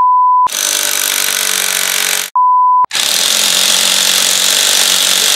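A cordless impact wrench hammering hard on a motorcycle's front sprocket nut, trying to break it loose. Two edited-in test-tone bleeps, each about half a second, cut across it at the start and about two and a half seconds in.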